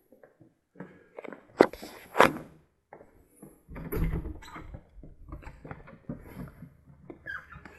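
Footsteps on a tiled floor with two sharp knocks about one and a half and two seconds in, then an interior door being opened by its handle, with a low thud as it goes.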